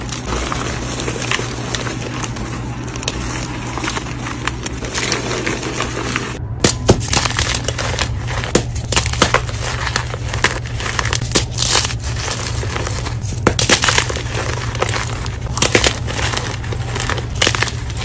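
Dyed gym chalk blocks being crushed, crunching and crumbling steadily. About six seconds in the sound breaks off briefly and goes on with sharper, louder crisp cracks.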